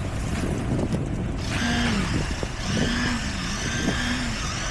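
Low, steady rumble of heavy construction machinery engines. From about a second and a half in, a wavering pitched tone rises and falls over it in stretches of about a second.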